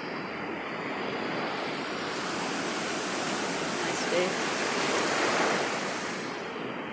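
Sea surf breaking on the shore: a steady rush of waves that swells about five seconds in.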